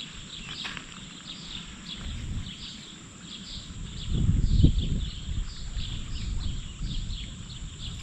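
Outdoor creek-side ambience: short high chirps repeating evenly, about two to three a second, over a low rumbling noise that swells about four seconds in.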